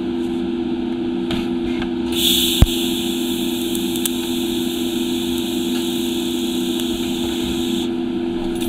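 TIG welding arc tack-welding a stainless steel heat shield leg onto an exhaust pipe. The arc strikes with a sharp crack about two and a half seconds in, then hisses steadily for about six seconds before cutting off, over a constant low hum.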